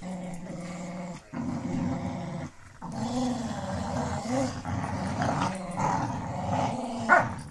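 Dogs growling in play while tugging on a stuffed toy, a low continuous rumble broken by a couple of short pauses. A brief louder, higher sound comes near the end.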